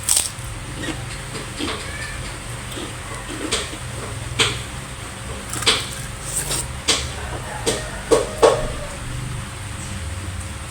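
Eating sounds: irregular short clicks and smacks of chewing and food being handled, the strongest pair near the end, over a steady low hum.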